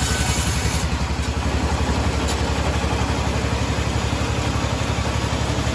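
An engine running steadily with an even, fast low pulsing; a high hiss drops away about a second in.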